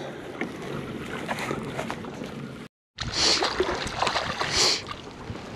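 Water moving around a kayak's hull with a steady hiss. After a sudden break, louder splashing and rustling come in spurts as a hooked redfish pulls against the bent rod.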